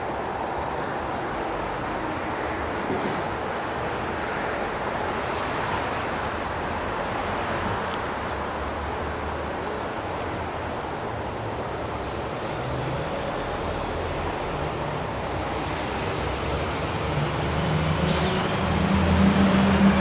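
Steady high-pitched chorus of crickets, with clusters of chirps, over a constant rushing noise. Near the end a low hum of a passing vehicle swells in.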